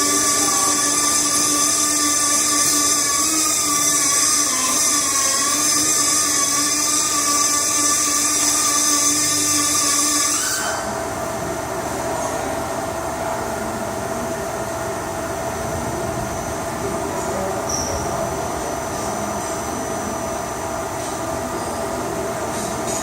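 CNC machine's axis drives running, a steady whine of several tones that waver slightly in pitch. About ten seconds in the higher whine cuts off suddenly and a lower, quieter steady hum carries on.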